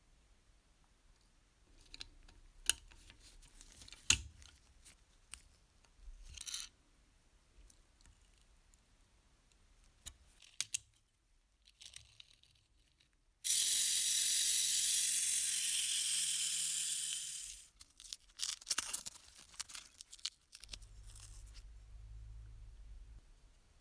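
Scattered clicks and knocks of handling on a workbench, then a steady hiss of pressurised spray lasting about four seconds that fades out, followed by more clicks.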